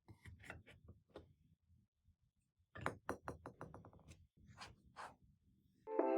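Light plastic clicks and taps from handling small plastic toy figures and their packaging: a few scattered clicks, then a quick run of clicks coming faster and closer together about three seconds in, then a couple more.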